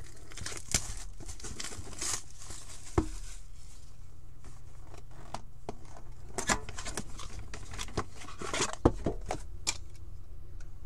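A cardboard hobby box being handled and a metal card tin slid out of it and set down: scattered knocks, clicks and cardboard rustling, with a sharp knock about three seconds in and the loudest one near nine seconds.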